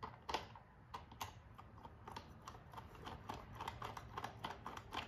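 Faint plastic clicking and ticking as a toy screwdriver is turned by hand, driving a plastic screw into a plastic pegboard. The clicks are sparse at first and come faster, several a second, from about halfway on.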